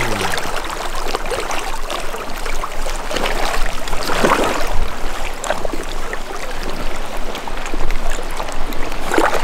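River water rushing past, with sloshing and splashing as someone wades through it; a few louder splashes stand out.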